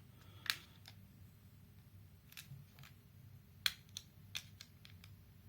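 Scattered sharp clicks of fingernails catching and snapping against the seam of a small plastic Bluetooth adapter case as it is pried at, with quiet in between.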